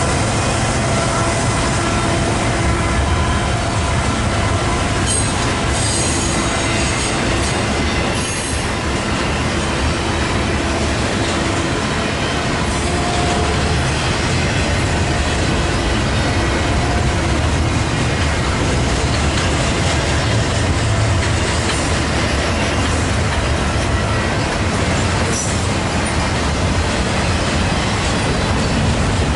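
Freight train cars rolling past, steady and loud, steel wheels clacking over the rail joints with some faint wheel squeal.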